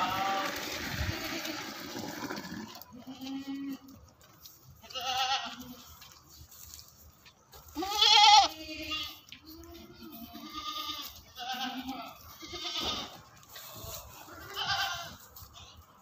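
Goats bleating, about eight wavering bleats from several animals one after another, the loudest about eight seconds in. A rushing noise fills the first two or three seconds.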